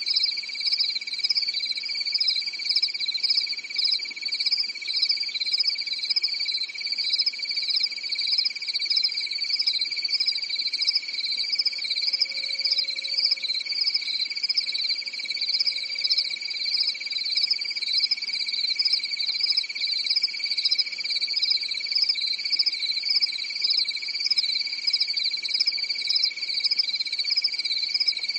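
Crickets chirping in a continuous chorus: a steady high trill with a higher, rapidly pulsing chirp layered over it.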